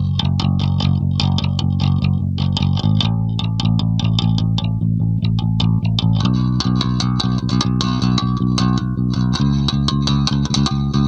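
Ibanez SRT805DX electric bass with EMG 40DC pickups and a Darkglass Tone Capsule preamp, played clean with no effects. A fast run of plucked notes rings over low notes that change every few seconds.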